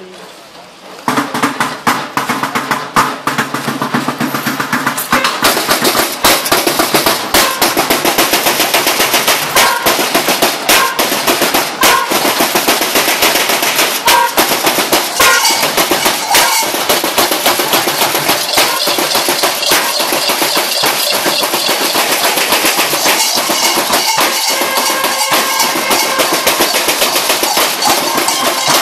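Many Perchten bells shaken together in a loud, dense, rapid clanging and rattling that starts about a second in and keeps going.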